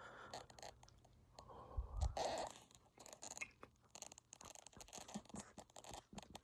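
Handling noise from a phone held close to the face: irregular scratching and crackling against the microphone, with a louder rub and a low thump about two seconds in.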